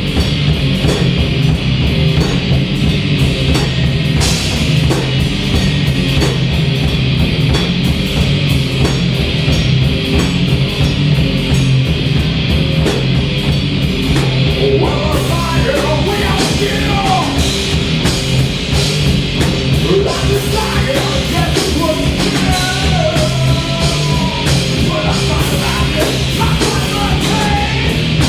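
Live heavy rock band playing loud, with distorted guitar, bass and a steady drum beat. About halfway through, a wavering lead line comes in over the band.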